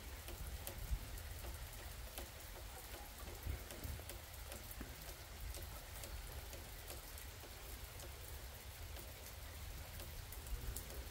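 Steady rain, with many separate drops ticking on a nearby surface, over a low steady rumble.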